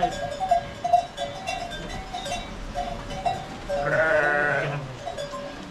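A sheep bleats once, a call of about a second, about four seconds in, over a bell on the livestock clinking on and off; a couple of sharp knocks come in the first second.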